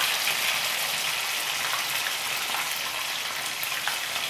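Battered squid pieces frying in hot sunflower oil in a frying pan: a steady, dense sizzle with scattered small pops, easing slightly toward the end.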